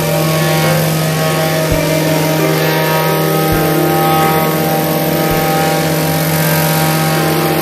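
Small gasoline engine of a vibratory plate compactor running steadily while the plate is worked over loose crushed gravel.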